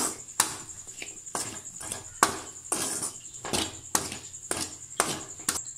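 Steel ladle scraping and knocking against an aluminium kadai while chopped okra masala is stir-fried, about two strokes a second. A faint steady high whine runs under the strokes.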